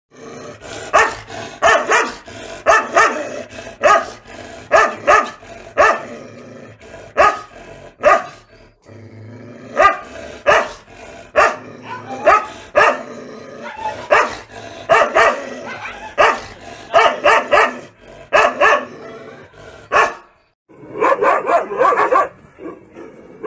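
Rajapalayam dog barking over and over, short sharp barks mostly in twos and threes. After a brief silence about twenty seconds in, the barking comes quicker.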